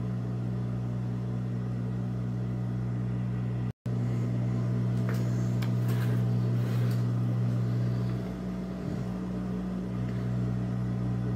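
Steady low electric hum of an industrial sewing machine motor running idle, with light rustling and small clicks as fabric is handled. The sound cuts out for an instant about four seconds in.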